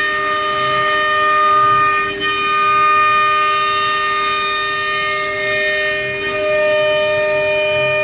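CNC router spindle whining steadily at high speed as it mills a profile into a wooden door panel. A brief dip in level comes about two seconds in.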